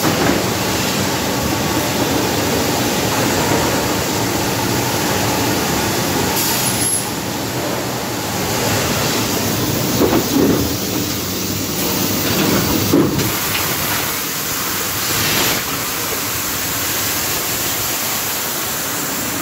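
A Techne Twin 400 extrusion blow moulding machine and its bottle conveyor running: a steady mechanical din with several short air hisses and a few louder clunks around the middle.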